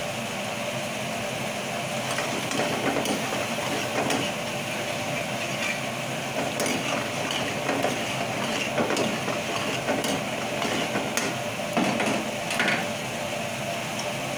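Metal ladle stirring thick curry gravy in a metal kadai, with irregular clinks and scrapes against the pan from about two seconds in until near the end, over a steady mechanical hum.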